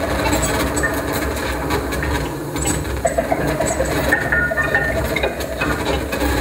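Live experimental improvised music: a dense clattering and scraping texture over a low rumble, with no steady beat.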